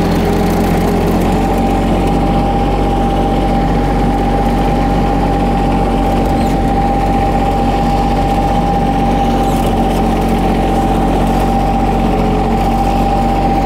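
John Deere X758 ride-on mower's three-cylinder diesel engine running steadily at open throttle while driving, with a steady high whine over the engine note.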